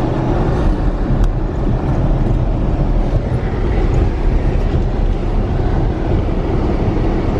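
Car road noise heard from inside the cabin while driving: a steady, loud low rumble of engine and tyres.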